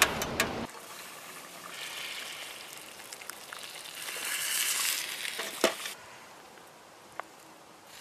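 A few metal knocks from a small camp wood stove's door, then thick soup poured from a pot into a steel cup on a grill over the fire, a wet pouring hiss that swells in the middle and ends with a sharp metal clink.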